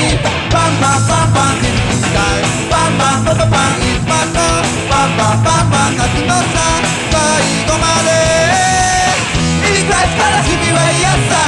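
Punk rock song with distorted electric guitars, drums and a sung lead vocal, played at full level.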